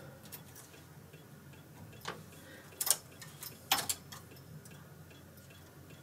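Faint metal clicks and ticks of a three-prong transfer tool lifting stitches off the metal needles of a Brother KH585 knitting machine and moving them along the needle bed, with about three sharper clicks in the middle.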